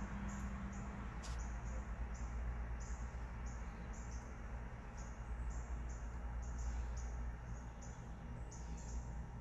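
High-pitched chirps repeated about two to three times a second, steady throughout, over a low continuous rumble.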